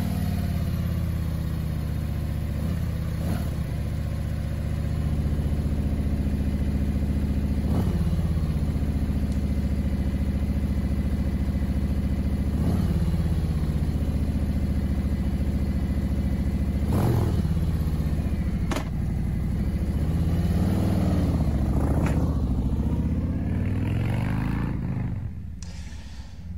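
Harley-Davidson Street Glide's Milwaukee-Eight 114 V-twin idling through a Jekill exhaust, blipped with the throttle several times, then pulling away and fading near the end.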